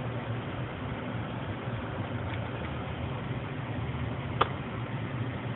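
Steady low hum of a running desktop computer, with one sharp click a little over four seconds in.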